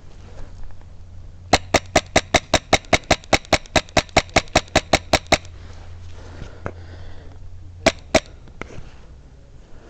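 Airsoft gun firing a quick string of about twenty sharp shots, about five a second, then two more shots a couple of seconds later.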